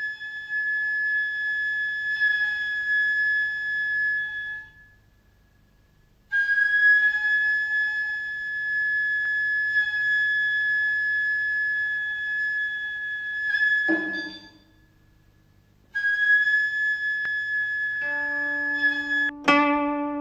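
Instrumental music: a wind instrument holds three long, steady notes with short pauses between them, and plucked string notes come in near the end.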